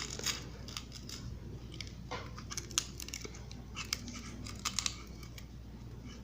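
Galvanized steel wire being threaded through the holes of an iron electrical box: scattered light clicks and scrapes of wire on metal, with a quick cluster of clicks a little over halfway through.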